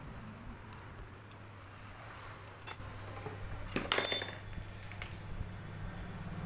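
Steel spanners clinking as they are handled and set down: a few light clicks, then a louder metallic clink with a brief ring about four seconds in, over a steady low hum.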